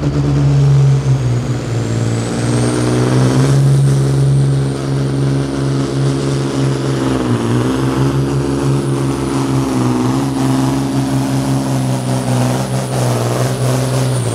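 Tuned Volvo truck's diesel engine at full load pulling a weight-transfer sled, with a high turbo whistle that rises over the first few seconds and then holds. The engine pitch sags briefly twice under the load, and the whistle starts to fall away at the very end.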